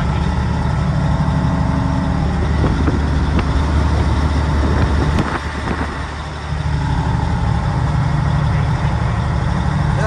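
Caterpillar diesel engine of a 1986 Ford LTL 9000 truck pulling steadily at road speed, heard from inside the cab along with road noise. A little past halfway the engine note drops away for about a second, then picks back up.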